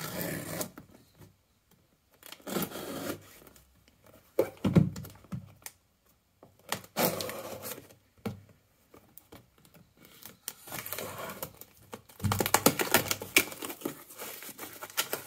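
Folding knife slicing through packing tape on a cardboard box in a series of short rips. About three quarters of the way through, the cardboard flaps are pulled open with a longer stretch of crackling and rustling.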